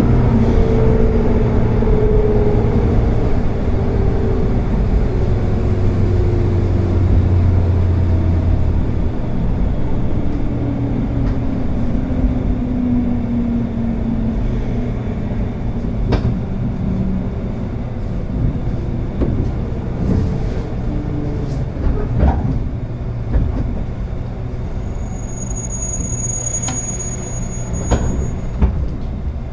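Running sound inside a JR West 201 series thyristor-chopper electric train as it slows for a station under its regenerative brake. The motor and chopper whine falls steadily in pitch over the first half, over the rumble of the wheels. Rail knocks follow, with a brief high squeal a few seconds before the end as the train comes to a stop.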